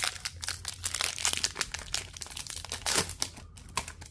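Foil wrapper of an O-Pee-Chee Platinum hockey card pack being torn open and crinkled by hand: a dense run of crackling that dies down about three and a half seconds in.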